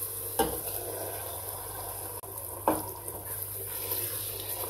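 Potato curry simmering with a steady hiss in an aluminium pot as spinach purée is tipped in from a bowl and stirred with a wooden spoon. Two short knocks, one just after the start and one a little past halfway.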